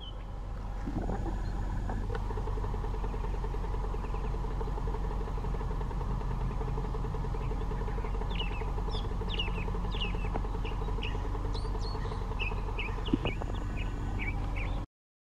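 Steady low background hum with small birds chirping in many short, quick high calls through the second half. There is one sharp tap a little before the end, and then the sound cuts out suddenly.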